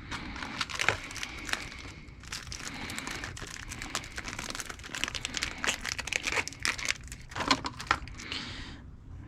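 Crinkling and rustling from something being handled, with many small sharp clicks throughout.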